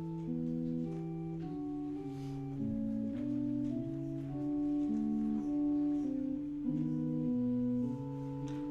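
Church organ playing a slow piece of held chords, the notes sustained without fading and moving from chord to chord every second or so.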